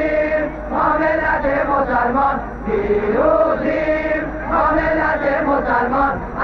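A large crowd of demonstrators chanting a slogan in unison, the same rhythmic phrase repeating about every three seconds.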